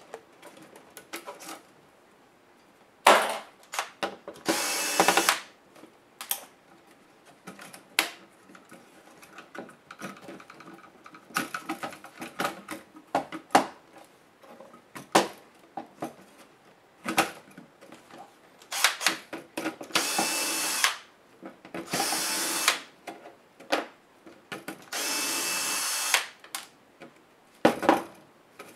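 Cordless electric screwdriver running in four short bursts of about a second each, backing screws out of a laptop chassis. Between the bursts come sharp clicks and knocks of plastic and metal laptop parts being handled.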